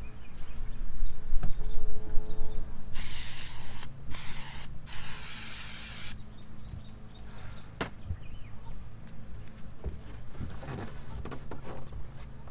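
A brief squeaky rub, then three bursts of hissing spray about a second in all, half a second, and a second and a half long.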